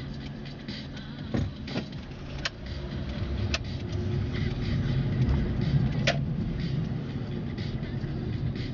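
Car engine and road noise while driving, steady rumble with a few scattered sharp clicks; it grows louder about halfway through.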